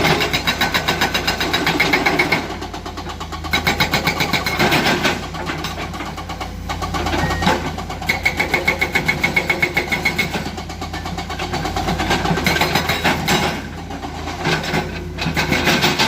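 Komatsu hydraulic excavator diesel engine working. It comes in stretches of rapid, even pulsing, each a couple of seconds long, between steadier running, with a thin high whine at times.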